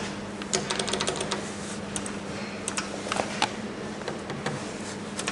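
Indoor ambience: a steady low hum with scattered, irregular light clicks and taps.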